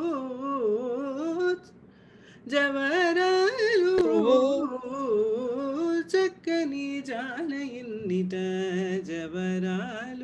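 A woman singing a Carnatic melody in Suddha Dhanyasi raga, her voice sliding and wavering through ornamented turns with no clear words, pausing briefly about two seconds in. A second, lower voice comes in underneath about eight seconds in.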